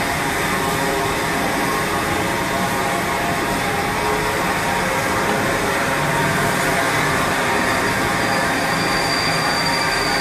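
GWR Castle-class steam locomotive No. 5043 'Earl of Mount Edgcumbe' rolling slowly past with its train, a steady hiss of steam and running noise. A high, steady squeal comes in about eight seconds in.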